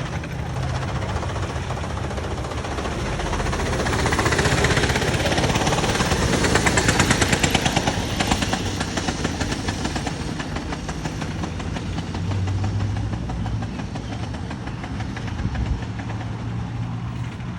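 Go-kart's small engine running, growing louder with a fast pulsing from about four to eight seconds in, then settling back to a steady rumble.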